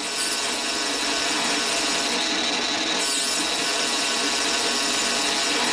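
Mini lathe running steadily with its chuck turning, the tool facing the end of a brass bar about 25 thousandths per pass. Its motor and drive make a constant noise with faint steady high tones, and the cutting adds to it.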